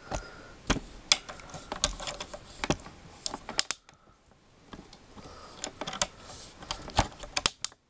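Irregular light clicks and taps of handling noise, with a brief silent gap near the middle.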